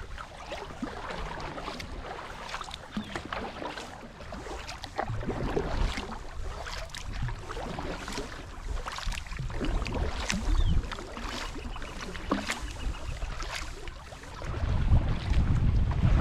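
Double-bladed kayak paddle dipping and pulling through the water, with repeated small splashes and drips over a steady water hiss. Near the end a louder low rumble sets in.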